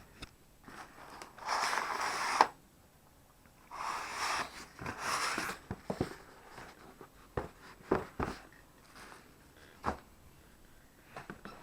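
A parcel's packaging being opened and handled: two long rustling noises in the first half, then scattered knocks and taps.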